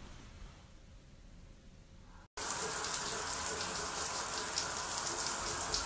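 A couple of seconds of quiet room tone, then water running steadily from a tap, starting abruptly.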